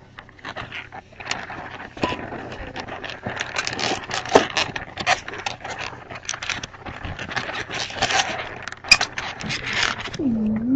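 A long latex modelling balloon being twisted and rubbed by hand into a balloon dog: an irregular run of squeaky rubbing, creaks and crackles.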